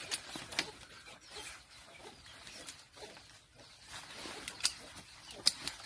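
Chickens clucking, with sharp snaps and rustling as old leaves are pulled and broken off a plant by gloved hands; several snaps come close together near the end.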